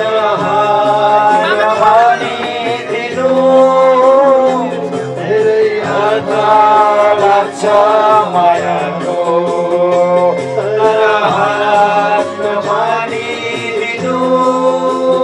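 A man singing a song into a handheld microphone, holding long wavering notes over a steady instrumental backing.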